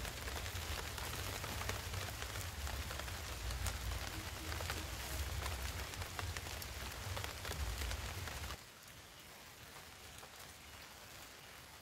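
Steady rain falling on forest foliage, a dense pattering of small drops, over a low rumble. Both drop away about three-quarters through, leaving quieter rain.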